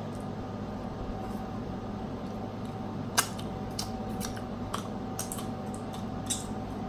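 Seafood shells being cracked and picked apart by hand while eating: one sharp crack about three seconds in, then several smaller snaps and clicks, over a steady low hum.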